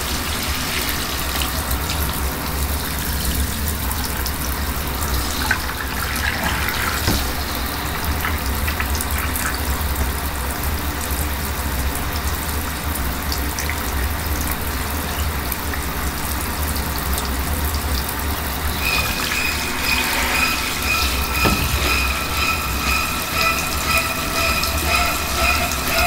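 Shower spray running steadily in a bathtub. About 19 seconds in, a rapid pulsing high tone joins it.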